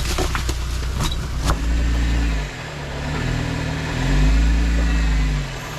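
Off-road 4x4 engine running under load, revved up twice and easing off after each, the second rev the louder. A few sharp knocks sound in the first second and a half.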